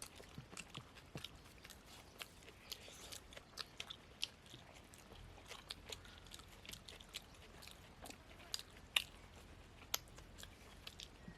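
Mouth sounds of people eating poori and mutton curry: chewing, with a steady run of small irregular wet clicks and smacks, one sharper than the rest about nine seconds in.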